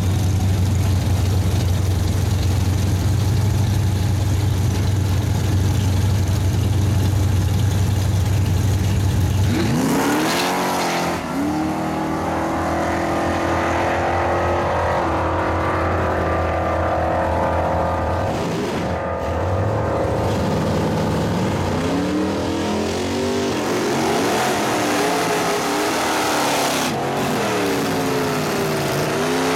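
Two drag-racing cars, one a Chevrolet Chevelle, idle with a deep steady rumble at the start line. About ten seconds in they launch and rev hard, the pitch climbing and dropping back at each gear shift as they pull away. In the last several seconds a different car revs up and down repeatedly while doing a smoky burnout.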